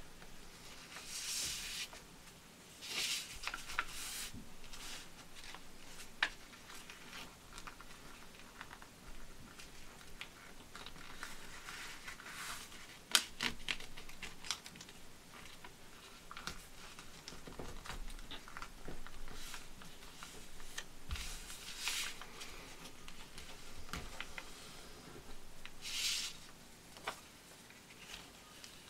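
A sheet of paper being folded and creased by hand: intermittent rustling swishes as it is handled and slid about, with one sharp crackle about halfway through as a fold is pressed.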